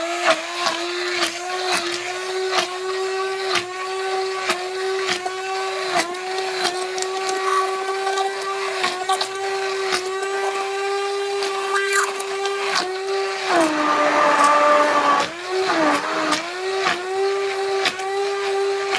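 Handheld Oster immersion blender running steadily as it purées cooked acorn squash in stock into soup, with many short clicks over the motor's hum. About two-thirds of the way through, its pitch drops for a couple of seconds and then climbs back, with a few brief dips near the end.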